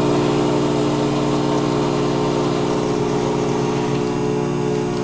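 A CVE 110 powder coffee vending machine runs steadily as it makes a cup, its motor humming evenly over a whirring noise.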